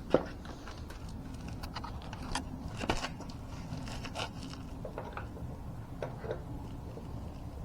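Small metal clicks and taps of parts being handled as hex bolts are fitted finger tight into a floor jack's height extension adapter, the sharpest click right at the start, over a low steady hum.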